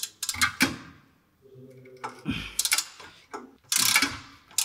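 Sharp metallic knocks and clinks of hand tools on a BMW E30 front suspension ball joint, where the stud has been tapped from below with a hammer to seat it so its nut can be tightened. A short low hum comes in the middle, and a louder noisy burst near the end.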